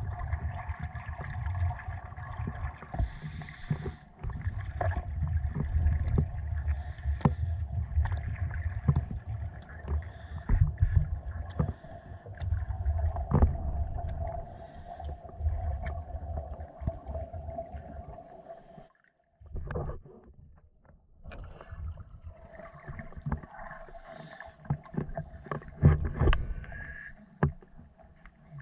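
Scuba divers' exhaled regulator bubbles heard underwater, muffled through a camera's waterproof housing: a low, uneven rumble and gurgle with frequent sharp knocks and a steady hum. The sound drops almost to silence briefly about two-thirds of the way through, then comes back.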